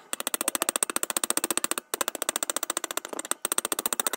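Hand-held hacksaw blade sawing a steel rod: a rapid, even rasping rattle of strokes with a metallic ring, broken by brief pauses about two and three and a half seconds in.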